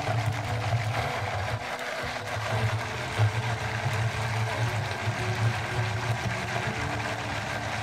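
BlendJet portable battery blender running steadily, its small motor humming as the blades churn frozen strawberries, blueberries and milk.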